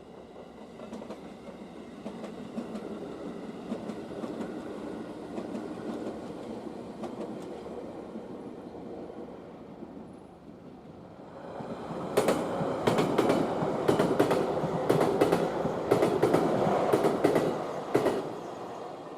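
A train passes close by on the rails. A rumble builds for about ten seconds, then a rapid run of sharp clicks from the wheels over the rail joints carries on for about six seconds and fades.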